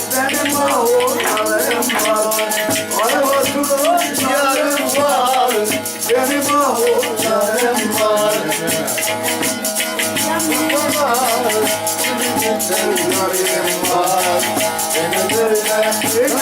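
Instrumental passage of Turkish folk-style band music: a wavering melody over fast, steady jingling and rattling percussion.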